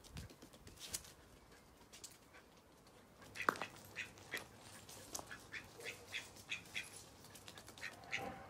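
A duck and a dachshund scampering about on patio paving, with duck calls. From about three and a half seconds in there is a run of short sharp sounds, about three a second.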